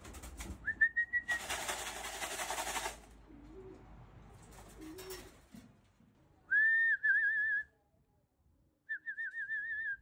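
A person whistling to call racing pigeons down to the loft: a short rising whistle about a second in, then two longer trilling, warbling whistles in the second half. Between them comes a brief burst of noise.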